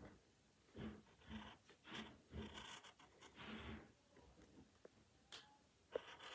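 Faint scratching of a drawing tool on paper: a run of short strokes, then a couple of light taps near the end.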